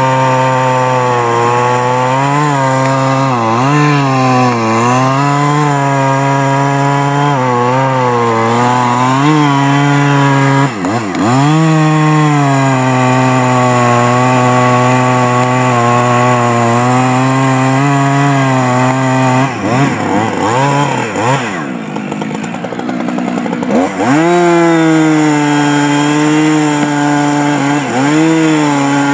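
Husqvarna chainsaw running at full throttle while cutting into a beech trunk, its engine note dipping again and again as the chain bites into the wood. About two-thirds of the way through it drops to a lower idle for a few seconds, then revs back up into the cut.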